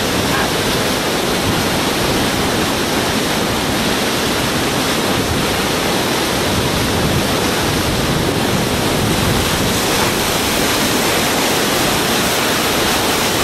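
Steady, loud rush of river whitewater churning into a rock-walled pool.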